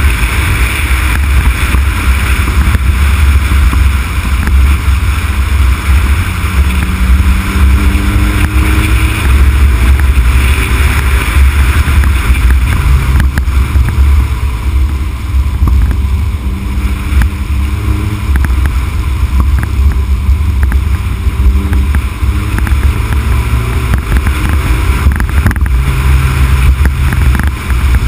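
Heavy, steady wind rumble on the microphone of a camera riding on a moving Honda Civic Type R (EK9), with the car's engine faintly audible beneath it, its pitch rising and falling with the throttle.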